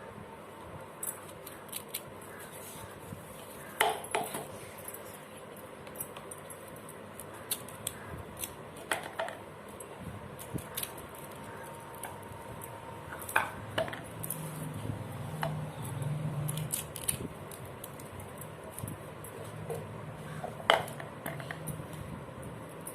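Kitchen utensils and containers being handled: scattered light clinks and knocks, with a few sharper knocks at irregular intervals.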